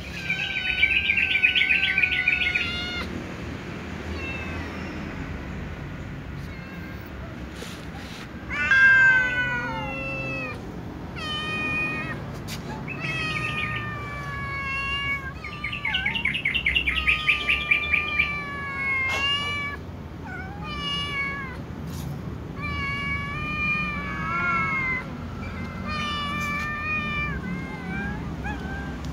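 Kittens and adult cats meowing loudly and over and over, calls overlapping, a few long ones with a fast quavering warble. They are begging for food before eating.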